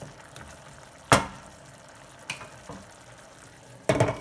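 Chicken wings simmering in curry sauce in a pan with a steady low bubbling sizzle, broken by a sharp knock about a second in, a lighter one a second later, and a louder clatter near the end, as of a utensil or lid against the pan.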